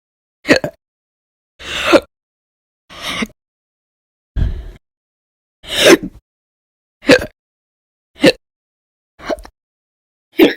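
A person hiccuping repeatedly: about nine short, loud hiccups in a row, a little over a second apart.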